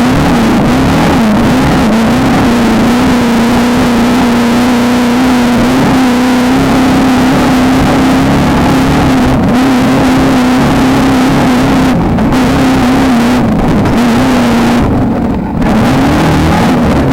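Engine of an off-road race Beetle running hard at sustained high revs. Its pitch stays steady with small wavers and eases briefly about fifteen seconds in, under a constant rush of noise.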